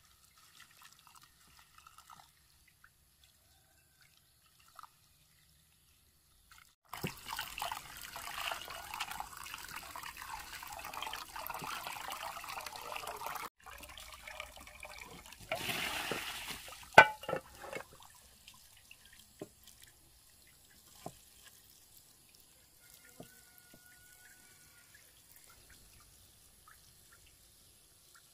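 Running water for about six seconds, then a second shorter spell of water ending in a sharp knock, followed by a few faint ticks.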